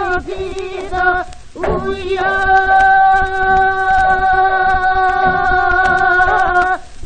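Korean Gyeonggi-Seodo folk singing (gyeongseodo sori) from an early Victor gramophone record, with the upper range cut off. A short sung phrase and a brief breath are followed by one long held note of about five seconds, with a slight waver.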